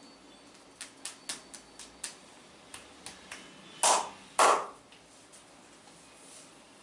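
A run of light, sharp clicks, then two loud hand slaps about half a second apart, the kind of percussive strike used in a massage.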